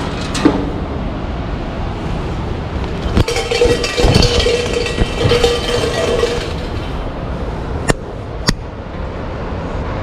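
A Shinto shrine bell (suzu) jangles as its hanging rope is shaken, from about three seconds in until past six seconds. It is followed by two sharp hand claps about half a second apart, the clapping of a shrine prayer.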